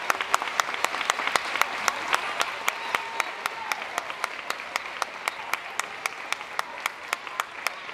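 Audience applauding, with one pair of hands clapping close by, sharp and steady at about four claps a second; the applause thins a little near the end.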